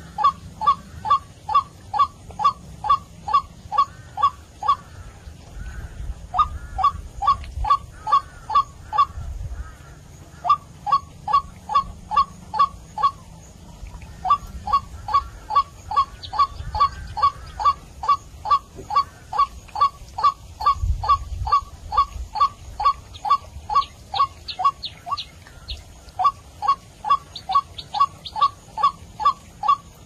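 White-breasted waterhen calling: a steady, monotonous run of short, downward-sliding notes, about two to three a second, broken by a few short pauses. It is a recorded lure call used to draw waterhens in for trapping.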